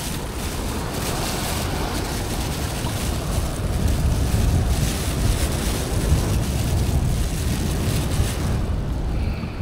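Wind buffeting the microphone with a steady low rumble, over the wash of small waves on the shore. A plastic bag rustles and crinkles as hands dig through it, fading out near the end.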